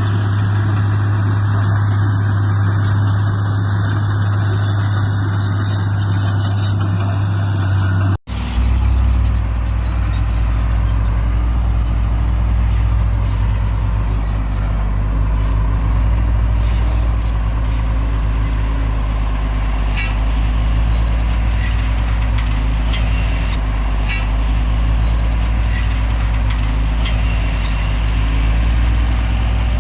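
Heavy diesel earthmoving machinery, bulldozer and dump trucks, running with a steady low drone. About eight seconds in the sound cuts abruptly to a deeper steady drone, with a few faint sharp clicks later.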